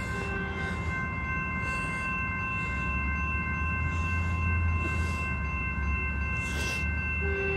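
A grade-crossing warning bell ringing steadily while the low rumble of an approaching Metrolink train builds from about two and a half seconds in.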